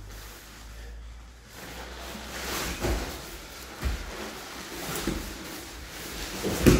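Jiu-jitsu grappling on foam mats: feet and bodies scuffling and thudding on the mat, with several dull thumps, the loudest near the end as the bottom grappler scrambles up.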